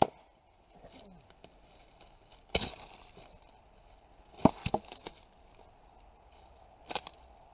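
A few scattered knocks, one a few seconds in, a quick cluster of three about halfway, and one near the end, with quiet between.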